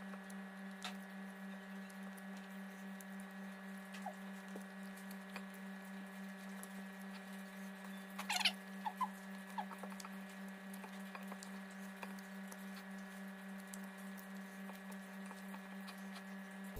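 Quiet eating by hand: small clicks and soft rustles of fingers picking at fish on a plate, over a steady low hum. A little past halfway comes a brief squeaky chirp, followed by a couple of smaller ones.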